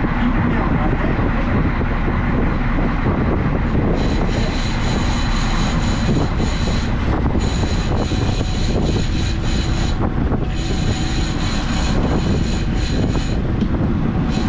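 Boat engine running steadily under wind and water noise, with a thin high whine that comes and goes from about four seconds in until near the end.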